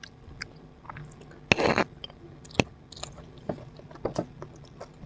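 Close-miked mouth sounds of a person chewing food, with small wet clicks throughout and one loud crunchy burst about a second and a half in.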